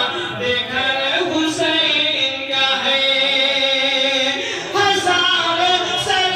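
A man chanting a devotional Urdu recitation in a melodic, sung voice, holding long notes, with a brief break about four and a half seconds in before the next phrase.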